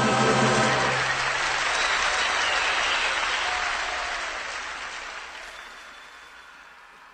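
The last held chord of a song dies away about a second in, followed by audience applause on a live music recording that fades out over the next few seconds.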